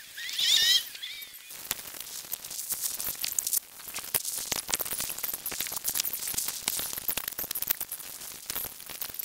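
Chicks peeping in a quick, loud run of high rising and falling chirps during the first second or so, followed by steady crackly rustling and scratching.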